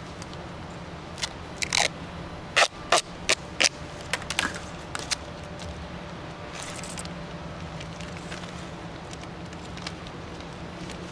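Black tape being pulled off its roll in a quick run of sharp rips over about four seconds, as it is wrapped around the protective sleeve on a PEX water line.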